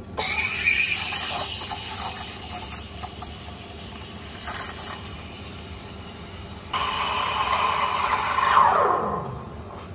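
Café espresso machine's steam wand hissing as milk is steamed. About seven seconds in, a louder tone joins the hiss and then drops steeply in pitch near the end.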